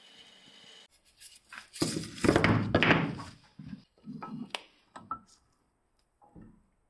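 A plywood strip being handled into a metal bench vise: a run of wooden thunks and knocks against the vise, densest and loudest about two to three seconds in, then a few lighter knocks.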